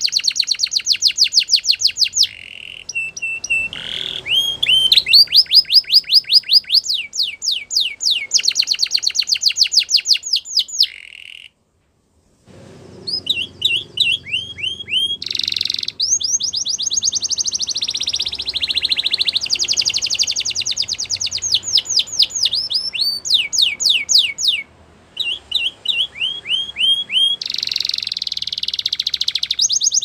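Spanish Timbrado canary singing: fast trills of rapidly repeated sweeping notes, one phrase after another at changing pitch and speed. The song breaks off into silence for about a second near the middle.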